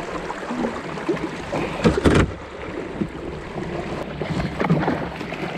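Kayak paddle strokes splashing through fast-flowing water as the kayak is paddled upstream against the current, with a couple of sharp knocks about two seconds in.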